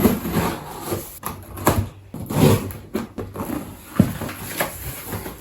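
A parcel being opened and unpacked by hand: packaging rustling, with scattered knocks and clicks as items are handled.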